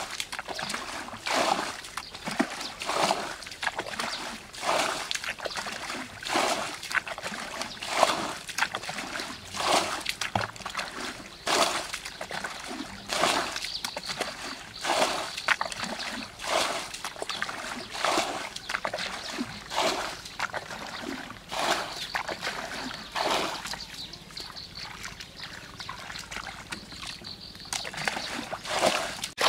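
Muddy water being bailed out of a shallow pool with a plastic bucket: repeated scoop-and-throw splashes, about one every one and a half to two seconds, fewer and softer near the end. The pool is being drained to get at catfish in the mud.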